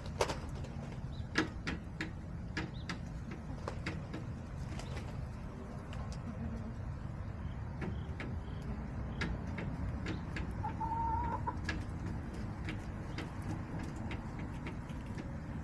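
Backyard hens calling softly, with one short drawn-out call about eleven seconds in, over scattered sharp ticks and a steady low rumble.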